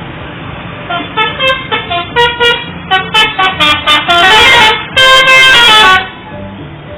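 A super-high-deck bus's 'telolet' multi-tone musical air horn playing a quick tune of about a dozen short notes, starting about a second in, then two long, loud held chords.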